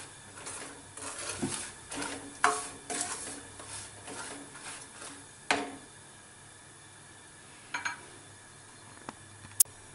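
Plastic spatula stirring and scraping semolina with roasted peanuts around a nonstick pan as the semolina roasts on high heat, with a couple of louder knocks against the pan. The stirring stops about six seconds in, followed by a few sharp clicks near the end.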